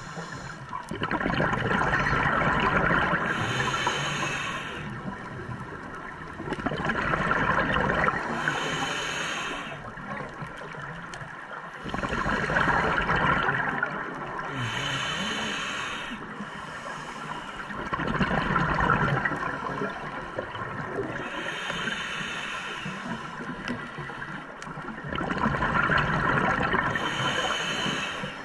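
A scuba diver breathing through a regulator underwater. Five surges of exhaled bubbles come every five to seven seconds, with softer hissing breaths in between.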